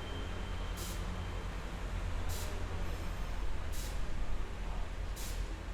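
Train station ambience: a steady low rumble of machinery under a general background noise, with a short high hiss repeating about every second and a half.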